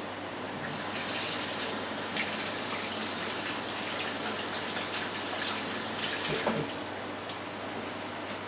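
Kitchen sink faucet running while hands are washed under it, an even rush of water that starts about half a second in and is shut off about six and a half seconds in.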